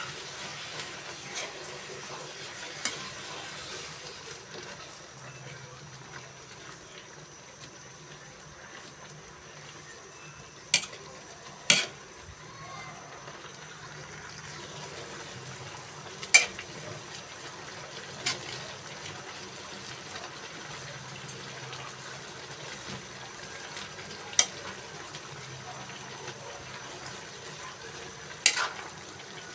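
A pot of cassava leaves cooking in coconut milk, with a steady sizzling simmer. A metal utensil stirs it and clinks sharply against the pot about six times, spaced a few seconds apart.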